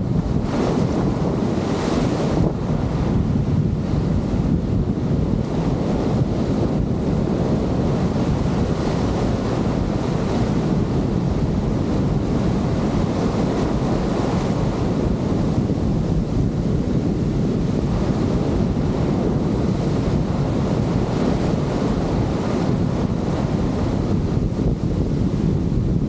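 Breaking ocean surf and foaming wash swirling around the microphone in the shallows: a steady, heavy rushing noise, with strong wind buffeting the microphone.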